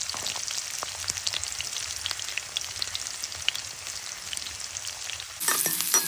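Sliced shallots sizzling in hot oil in a metal kadai, with small crackles and pops. Near the end a perforated metal ladle starts stirring them, scraping against the pan.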